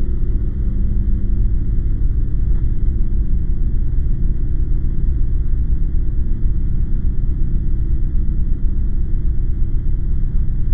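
A loud, steady, deep rumble: a film soundtrack's low sound-design drone under the credits.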